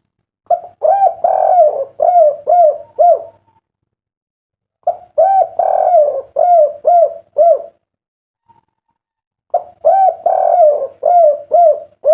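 A derkuku dove singing its 'kuk 3' coo three times, each phrase a rolling opening followed by three short, clear 'kuk' notes, with pauses of about a second and a half between phrases.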